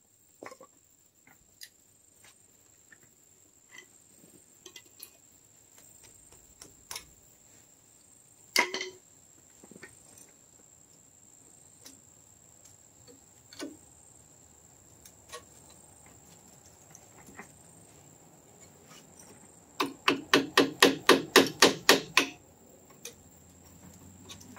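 Hammer striking the front brake caliper hardware: scattered light taps and metal clinks, one harder knock a third of the way in, then a quick run of about a dozen hard blows at roughly six a second near the end.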